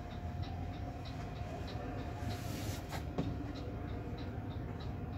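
Steady low rumble with a constant hum and a fast, even ticking, heard inside a parked coach in an exhibition hall; a single sharp knock about three seconds in.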